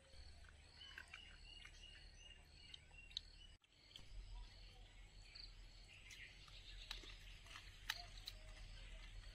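Near silence: faint rural outdoor ambience with soft insect and bird chirps and a few small clicks. The sound drops out abruptly once, a little over a third of the way in.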